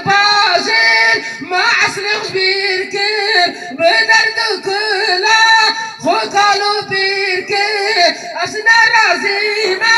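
A man singing into a microphone through a loudspeaker, in long, wavering held notes with short breaks between phrases.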